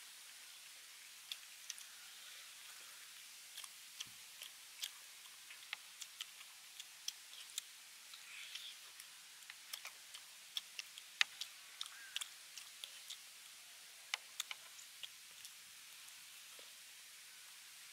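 People eating braised beef ribs by hand: irregular short clicks and smacks of biting and chewing, one to three a second, the sharpest about halfway through, over a faint steady hiss.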